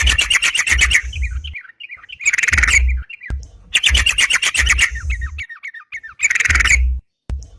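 Yellow-vented bulbul (crucukan) singing hard: about four bursts of rapid chattering notes, each about a second long, with short runs of quick falling notes in between. This is the vigorous, challenging song used as a lure call.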